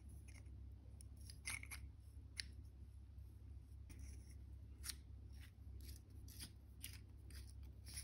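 Faint, irregular small clicks and scrapes of brass compression-fitting parts being handled: a copper pipe with its taped olive is pushed into the brass fitting body and the brass nut is started onto the thread.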